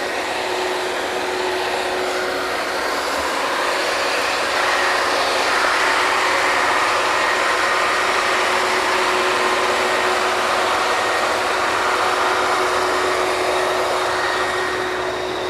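Machinery of a working oil drilling rig running: a loud, steady mechanical din with a faint steady whine, growing a little louder for most of the middle.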